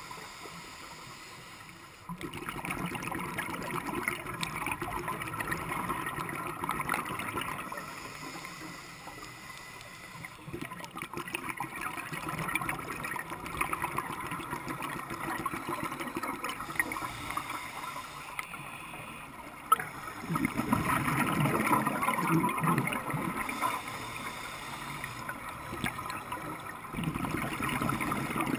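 Underwater, muffled through a camera housing: a scuba diver's exhaled bubbles gurgling in bursts a few seconds long, about every seven or eight seconds, with quieter water noise between. The loudest burst comes about two thirds of the way in.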